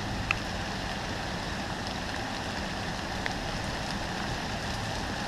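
Steady background hiss of outdoor noise, with a couple of faint short ticks.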